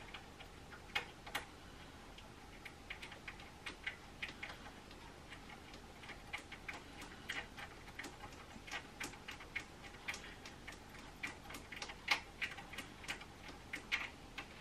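Light, irregular clicks and taps of small metal parts at the needle plate of a Janome HD9 sewing machine as the plate is fastened back down, a few a second with a louder click about twelve seconds in.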